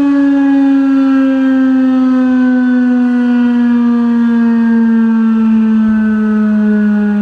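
Federal Signal 2001-130 electromechanical outdoor warning siren sounding loud and steady. Its single tone slides slowly and evenly down in pitch.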